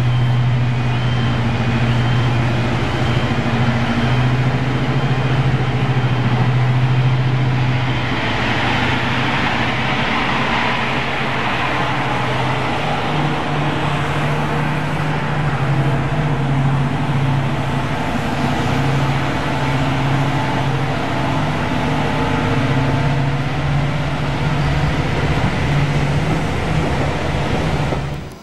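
Full-size diesel locomotive engine running with a steady deep drone that shifts slightly in pitch, a rushing hiss swelling about a third of the way through. It cuts off suddenly at the end.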